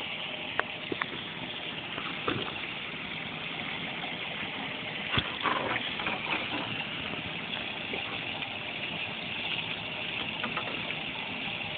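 Steady background hiss with a few scattered knocks and a louder clatter about five seconds in, as a bass is fought on a spinning rod and reel from the bow of a small boat.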